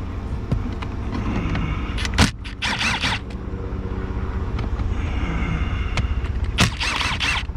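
A ratchet tool backing out 10mm bolts in two short rattling bursts, one about two seconds in after a sharp click and one near the end, over a steady low hum.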